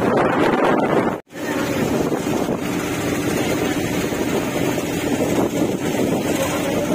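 Heavy rain and rushing floodwater running through a street: a steady loud wash with wind buffeting the microphone. The sound cuts out for an instant about a second in.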